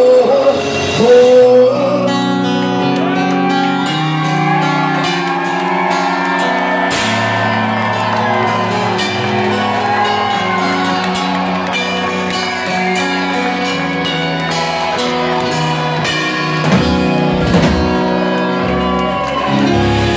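Live rock band playing: a male singer's long held sung lines over sustained electric guitar chords and drums.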